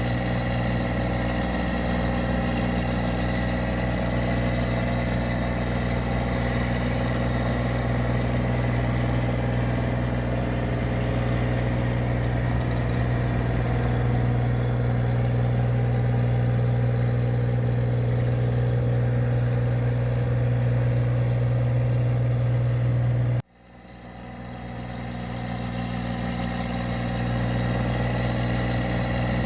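Engine of a rice paddy machine running steadily at a constant speed. About 23 seconds in the sound cuts out abruptly and swells back up over a few seconds.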